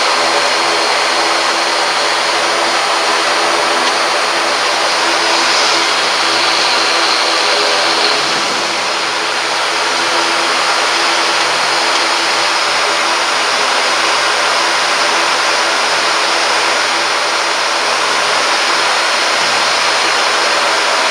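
ATR 72-600's Pratt & Whitney PW127M turboprop engines and propellers running at low power, heard inside the cockpit: a steady drone carrying several steady tones under a broad hiss, dipping slightly about eight seconds in.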